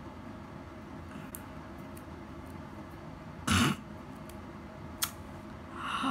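A wax strip is ripped off an eyebrow, heard as one short loud burst about three and a half seconds in. A sharp click follows, and near the end comes a short vocal exclamation falling in pitch.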